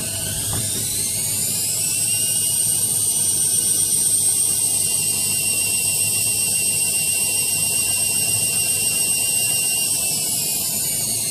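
AEG Lavamat 6410 washing machine spinning: the drum motor's high whine rises in pitch as the drum speeds up, holds steady at spin speed, then drops slightly near the end, over a low rumble from the drum.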